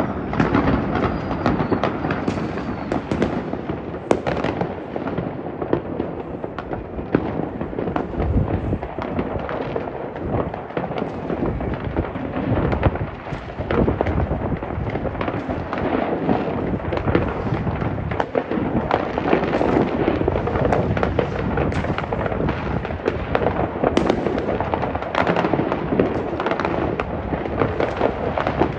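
Many fireworks going off at once across a town: a dense, unbroken wash of overlapping bangs and crackling from rockets and firecrackers, with now and then a single sharper bang standing out.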